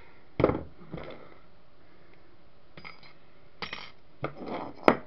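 Tools and small metal parts being handled and set down on a workbench: a series of separate knocks and clinks. The loudest is a knock about half a second in, and there is a sharp metallic clink near the end.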